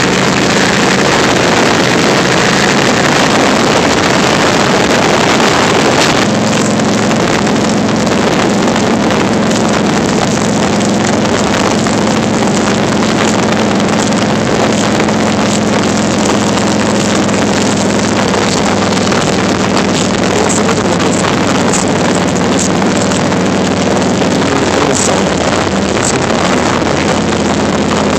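Harley-Davidson Heritage Softail's air-cooled V-twin engine running at road speed, with wind rushing over a handheld phone's microphone. The engine hum grows stronger about six seconds in.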